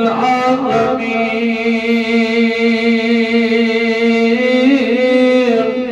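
A man's voice chanting in long, held melodic notes, with a glide in pitch at the start and another shift about four and a half seconds in. The chant fades out right at the end.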